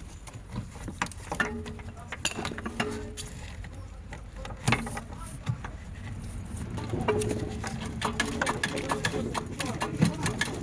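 Workshop tool work on metal: a run of quick clicks and knocks that comes faster in the second half, with a steady hum coming and going twice.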